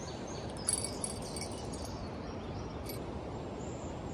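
River rapids rushing steadily below a dam, an even hiss of moving water, with a brief light click and a few faint high chirps about a second in.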